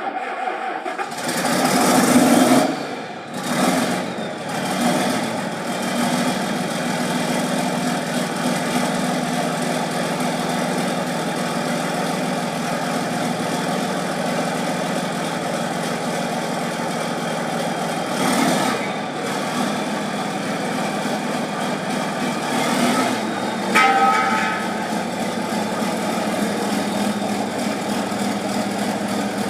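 A motor running steadily with a low hum, with a few brief louder swells of hiss. A short pitched squeal comes near the end.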